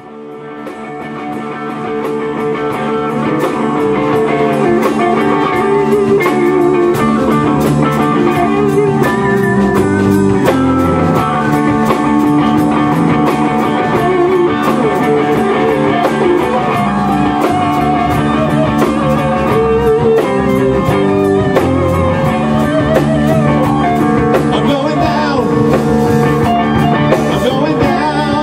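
Rock band playing live in a small room: electric guitars over a Tama drum kit with a steady, even cymbal beat. The music swells up over the first few seconds, then holds at a steady level.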